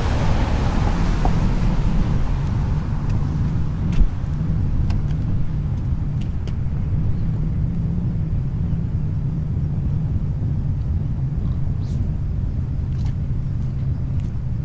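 Wind rumbling on the microphone: a steady low rumble, with a single click about four seconds in.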